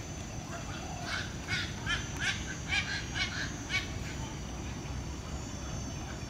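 A bird giving a quick run of about seven short calls, two or three a second, that stop about a second before the end. A steady low rumble runs underneath.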